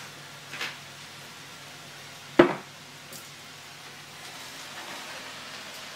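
A hand-held seasoning grinder gives one short grinding twist over the pan. About two and a half seconds in, a single sharp knock is the loudest sound. Underneath, silver beet sizzles faintly as it sautés in the frying pan.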